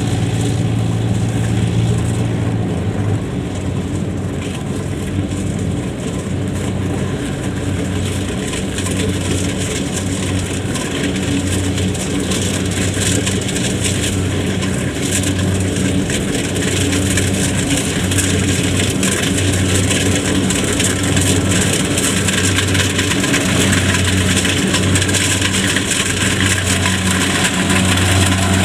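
Diesel engines of rice-harvesting machinery (Kubota DC70 combine harvesters and waiting tractors) running steadily. A low drone swells and fades at a slow, regular pace.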